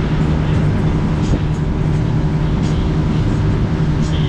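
Mercury two-stroke outboard motor running steadily at cruising speed on a boat under way, with a constant rush of water and wind over it.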